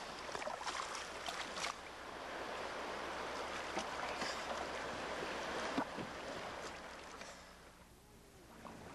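Sea water splashing and sloshing close by as a snorkeler kicks away through it, with many small splashes; it grows quieter near the end.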